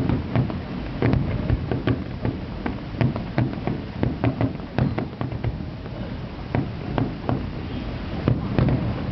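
Fireworks display: an irregular string of bangs and crackles, several a second, over a low rumble.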